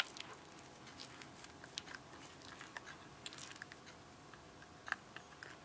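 Faint small clicks and rustles of a speaker wire being handled and pushed into a spring-clip speaker terminal, with a sharper click about five seconds in.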